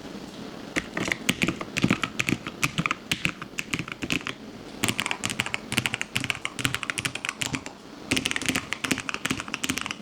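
Typing on a Lofree low-profile mechanical keyboard: quick runs of key clicks, broken by short pauses about four and eight seconds in.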